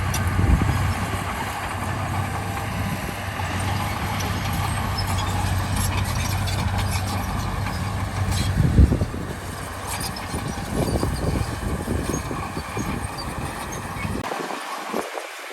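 Heavy diesel earthmoving machinery running steadily, with one loud knock about nine seconds in and scattered metallic clanks after it. The deep engine sound drops away near the end.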